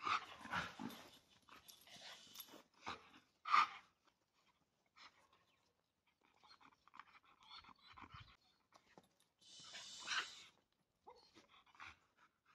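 A dog panting in uneven bursts, the loudest about three and a half seconds in, with a rustling hiss of about a second near the ten-second mark.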